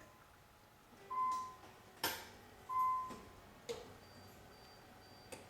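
Two short electronic beeps about a second and a half apart, several sharp clicks in between, and a faint high-pitched beep repeating near the end.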